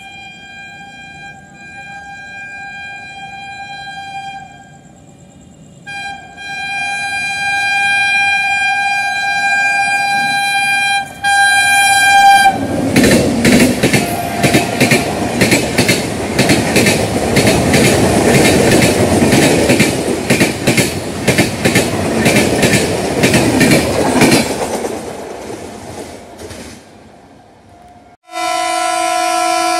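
Indian Railways express train sounding a long horn as it approaches, with a short pause, then its coaches passing at speed with rapid clickety-clack of wheels over the rail joints, fading away. Near the end, after a cut, a second train's lower-pitched horn starts.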